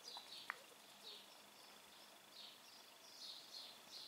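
Near silence, with faint, short, high chirps repeating every half second or so and a small click about half a second in.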